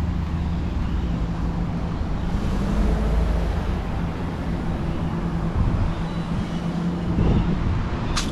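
A vehicle engine running steadily, with a deep rumble and a constant low hum of road and engine noise.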